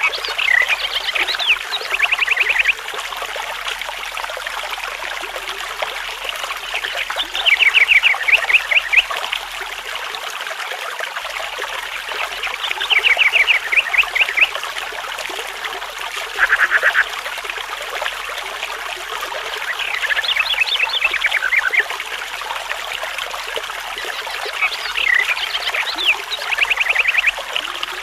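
A bird singing short phrases of rapid repeated notes about every four to six seconds, over the steady rush of a trickling stream.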